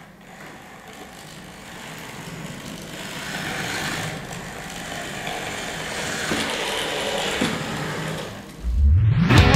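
Motorized Fischertechnik toy buggy driving down a plywood ramp: a small electric motor and plastic gearing whir steadily with the rolling wheels, growing louder as it approaches. Near the end the whir stops and a rising low whoosh leads into intro music.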